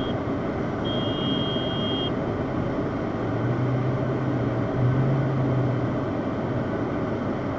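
Steady car-cabin noise from a car's engine and tyres as it creeps along slowly. A short high beep sounds about a second in, and a low steady hum comes in about three seconds in, lasting about three seconds with a brief break.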